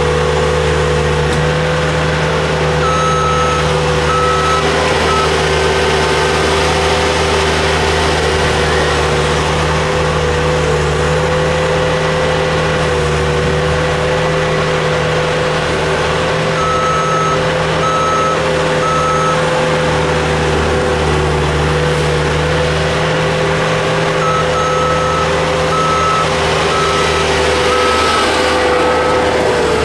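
Dump truck backing up, its reversing alarm beeping about twice a second in three short spells over the steady running of heavy diesel engines.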